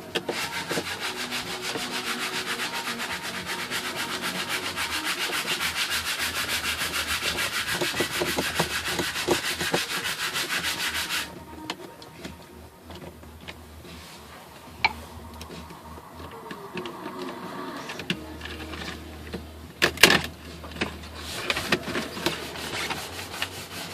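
A hand tool working out the cup holder's screws in the car's console: a rapid, even rasping rattle for about eleven seconds that cuts off abruptly. After it come quieter clicks of plastic parts being handled and a sharp knock about twenty seconds in.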